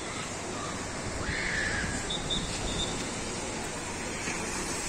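Steady rush of water running down an open water slide and into the pool as a rider comes down it on an inflatable ring.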